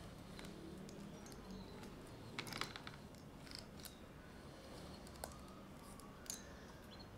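Faint handling sounds of a removed saw chain being wiped down with a cloth: soft rubbing with a few small metallic clicks, the loudest a short cluster about two and a half seconds in.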